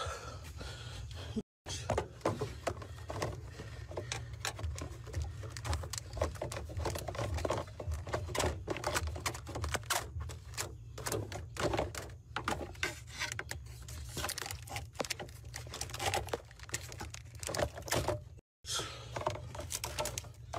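A knife hacking and sawing at rubber hoses and wiring in a car's engine bay, a dense run of irregular clicks, knocks and scrapes with phone-handling noise over a steady low rumble. The sound drops out briefly twice, about a second and a half in and near the end.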